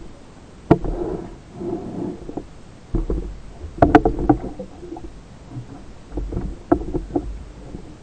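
Muffled underwater knocks and clicks of spearfishing gear being handled, with water swishing around it; the sharpest knocks come about a second in, around four seconds in and near the end.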